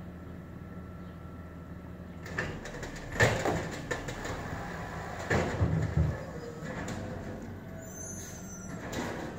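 Automated side-loader garbage truck idling, then a run of metallic clanks and bangs as it works a trash cart. The loudest bang comes about three seconds in, and a cluster of bangs follows around five to six seconds in.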